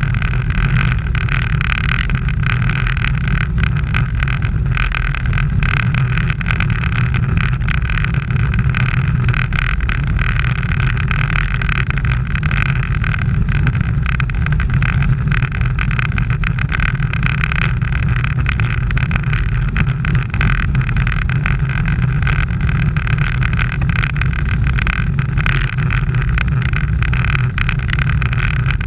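Steady rush of wind on an action camera's microphone, mixed with bicycle tyres running on asphalt, while riding at race speed.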